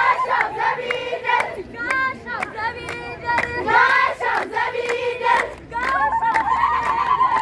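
A chorus of girls singing a traditional Shaday festival song together, with hand claps keeping the rhythm.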